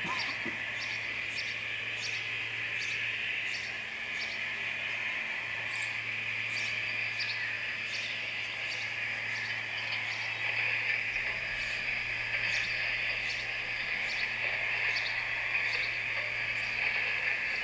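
Garden-railway model of a rack steam locomotive running slowly, its sound module playing the recorded steam chuffs of the Ballenberg HG3/3 at about one and a half a second. Under them are a steady high hiss and a low hum.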